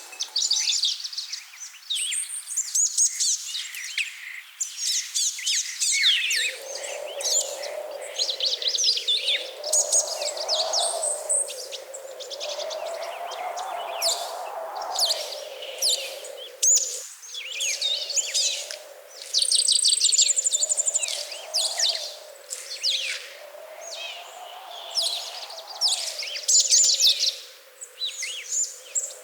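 Many small birds chirping and trilling in quick, overlapping calls. About six seconds in, a steady lower rushing noise comes in beneath them.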